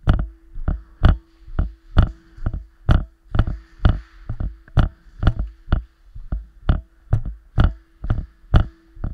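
Rhythmic thumping, about two knocks a second, from a body-worn camera jolting and rattling with each running stride. A faint steady hum runs underneath.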